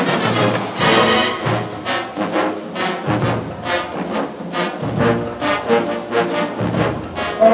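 Marching band playing a brass-heavy tune over drums, with loud, punchy accented hits.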